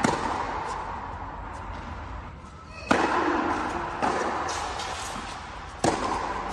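Rally of tennis balls struck by rackets, four sharp hits with a ringing echo in a large indoor tennis hall, spread about a second to three seconds apart.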